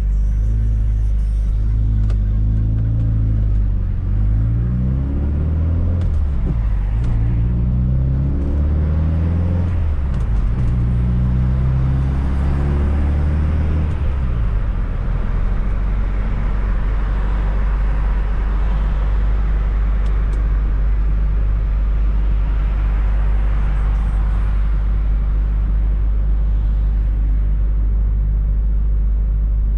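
Fiat Coupe 16V Turbo's turbocharged four-cylinder engine accelerating up through the gears, its pitch rising and dropping back at each shift about four times. About halfway through it settles into a steady drone with road noise.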